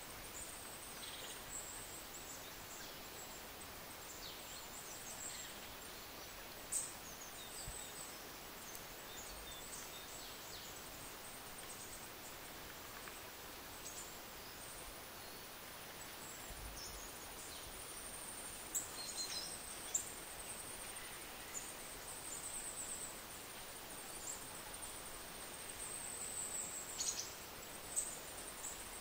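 Faint outdoor ambience: a steady hiss with scattered high-pitched chirps and short falling squeaks, and a thin, shrill chirping that sets in about halfway through. A few brief soft knocks stand out, the sharpest near the end.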